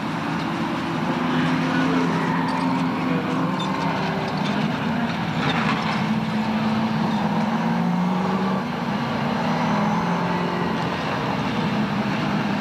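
Several late model stock cars' V8 engines running flat out on a paved oval, a continuous drone whose pitch rises and falls as the cars pass and change speed.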